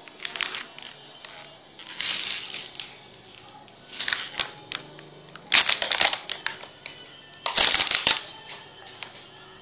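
Thin plastic water bottle crinkling and crackling as it is squeezed and handled, in about five loud bursts, the biggest a little past halfway and near the end, over faint background music.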